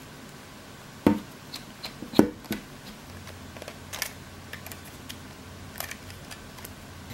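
Small hard clicks and snaps of a screwdriver prying the small side panel off a Canon T2i DSLR body. Two sharp snaps come about one and two seconds in, then lighter ticks and taps.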